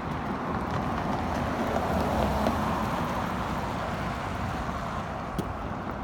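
Road noise of a car going by on the street, a steady tyre-and-engine rush that swells about two seconds in and slowly fades, with wind buffeting the microphone.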